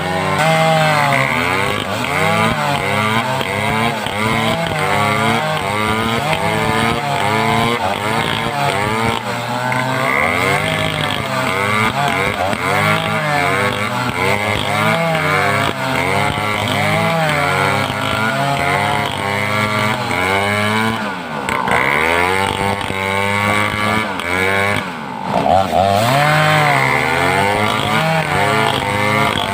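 Home-built two-stroke chainsaw running hard while cutting timber. Its engine pitch keeps rising and falling under load, with two short drops in revs in the last third.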